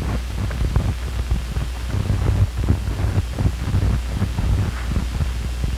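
Steady low hum and hiss from an old 1957 film's soundtrack, with scattered faint crackles and no clear sound effect.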